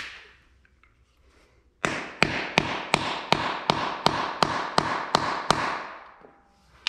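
Hammer striking a socket used as a setting tool, driving a 3/8-16 concrete anchor insert into a hole drilled in a concrete floor so its taper expands the soft-metal sleeve. About eleven sharp blows, roughly three a second, start about two seconds in.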